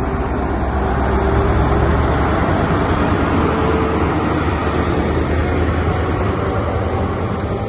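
Train's diesel engine running steadily: a low hum under a broad rushing noise, swelling slightly a second or two in.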